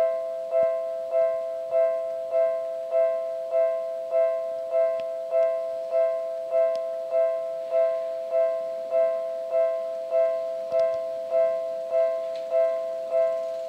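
Japanese railway level-crossing alarm ringing, warning of an approaching train: an electronic two-tone ding repeated evenly, about 1.7 strikes a second, each strike fading quickly.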